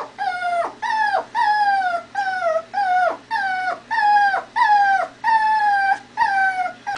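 Shih Tzu puppy whining over and over, about two high-pitched cries a second, each one dropping in pitch at its end.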